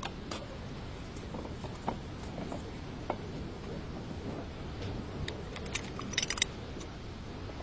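Scattered light clicks and taps over a steady low background noise, with a quick cluster of clicks about six seconds in.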